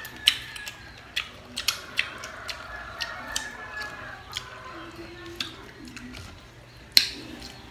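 Close-up mouth sounds of people eating crisp green mango slices: irregular sharp crunches and lip smacks while chewing, the loudest crunch about seven seconds in.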